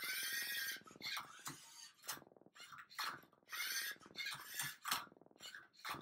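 Lego Mindstorms NXT servo motors of a MindCuber robot whirring in a quick series of short bursts as its arm tilts and its turntable turns a Rubik's Cube. The first whir, at the start, is the longest and loudest.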